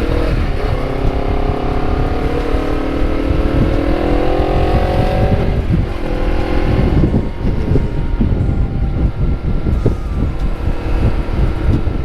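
Honda CBR250RR with a KEA Speed aftermarket exhaust under way: the engine note rises steadily for about five seconds as the bike accelerates, then drops off sharply. For the rest of the time the engine fades into a low rumble under wind buffeting on the microphone.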